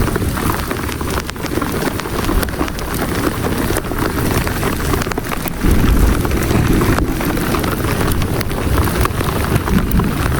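Marble-size hail and heavy rain pelting down in a storm, many small strikes over a dense hiss, with wind buffeting the microphone. The low wind rumble jumps louder about six seconds in.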